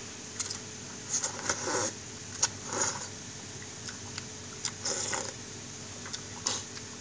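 Noodles and broth being slurped and chewed, in a handful of short slurps, with small clicks of chopsticks and a metal spoon against a glass bowl.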